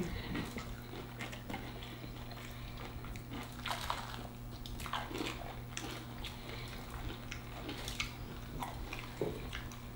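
Two people biting and chewing fried chicken sandwiches: irregular crunches and mouth clicks, with a steady low hum underneath.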